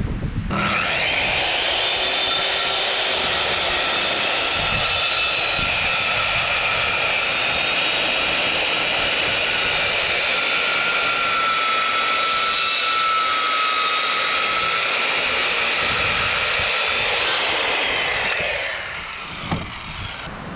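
Chainsaw on a chainsaw mill running at full throttle for about seventeen seconds, ripping a log into lumber, then dropping off near the end.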